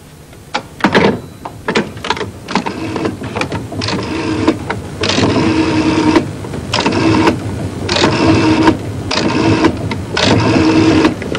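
Rotary telephone dial being turned and whirring back, a string of about five short runs with brief pauses between them in the second half, after a few handset and cradle clicks early on.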